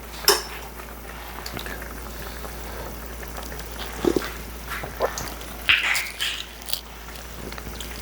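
Pot of curried coconut-milk broth bubbling steadily at the boil, with a handful of short sharp sounds over it in the second half.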